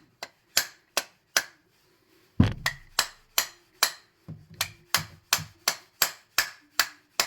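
A brass-and-plastic-faced hammer lightly tapping a gudgeon pin through a piston and connecting rod, about three sharp taps a second. There is a short pause, then a heavier blow about two and a half seconds in.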